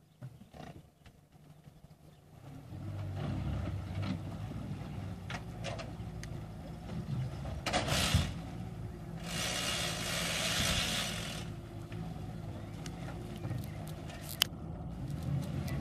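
Boat outboard motor running at a steady low hum that starts a couple of seconds in. There is a brief burst about eight seconds in, a hissing rush for about two seconds after it, and a single sharp knock near the end.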